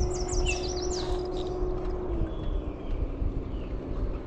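A distant motor hums steadily and drops slightly in pitch about two seconds in. Over it, birds give a quick run of descending chirps in the first second, with a low rumble throughout.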